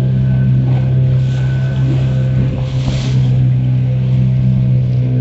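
Small wooden tour boat's engine running steadily under way, a low hum, with a brief rushing hiss swelling about three seconds in.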